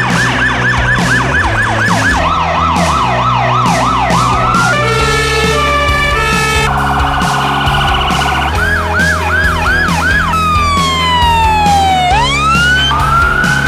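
Emergency vehicle sirens cut one after another over background music with a steady beat. First come fast yelp sweeps, then slower rising-and-falling sweeps, then a steady alternating tone and a rapid warble, more sweeps, and near the end a long falling glide followed by a rising one.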